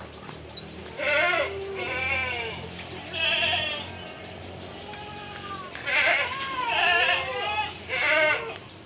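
An animal bleating repeatedly, about six separate wavering calls, each lasting roughly half a second.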